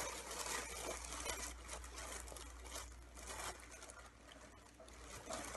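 Soft rustling, scraping and light taps of hands feeling and turning over a small object, a pair of glasses.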